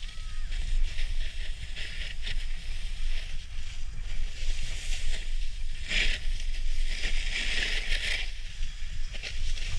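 Snowboard edge scraping and hissing over groomed snow while carving turns, over a steady low rumble of wind buffeting the microphone. The scraping swells loudest about six seconds in and again around seven to eight seconds.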